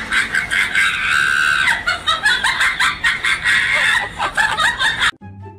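A person's high-pitched laughing and shrieking, loud and choppy, with one long held cry about a second in. It cuts off suddenly near the end.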